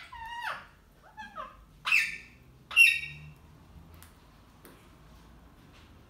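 Indian ringneck parakeets calling: a handful of short, harsh squawks with falling pitch over the first three seconds or so, the two near the end of the run the loudest, followed by a couple of faint clicks.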